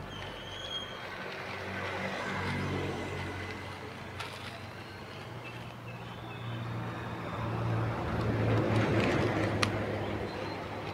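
Road traffic passing close by: one vehicle's engine swells past about two seconds in, and a louder one, a motor scooter, passes around eight to nine seconds in. There is one short sharp click near the end.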